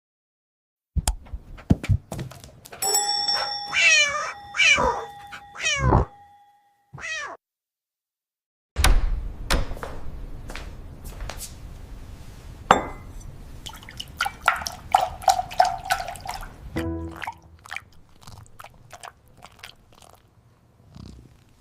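A cat meowing several times in gliding calls, over a steady ringing tone, with clicks and knocks before and after.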